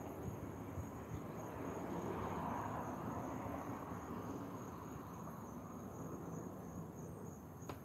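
Crickets trilling steadily, one continuous high-pitched song, over faint low background noise. A single soft click near the end.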